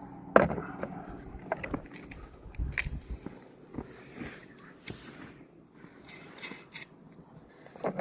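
Scattered clicks, clinks and knocks of aluminum brackets and screws being handled and fitted by hand, the loudest knock about half a second in.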